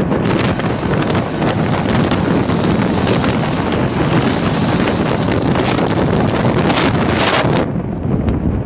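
Wind buffeting the microphone at the window of a moving train, over the steady rushing noise of the train running along the track. The hiss thins out a little near the end.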